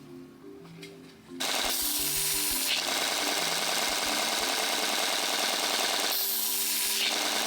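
Loud, steady abrasive rasp of sanding, which starts suddenly about a second and a half in and drops out briefly near the end, over soft background music.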